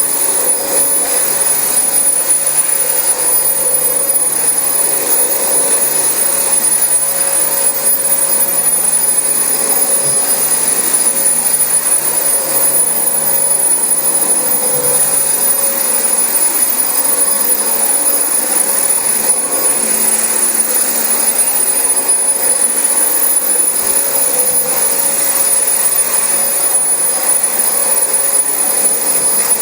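Dyson DC25 upright vacuum cleaner running steadily on carpet, its motor giving a constant high whine over a steady rush of air.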